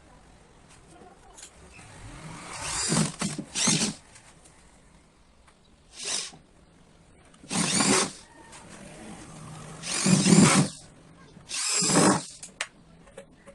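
Electric drill driving screws, running in about six short bursts of half a second to a second each, with pauses between.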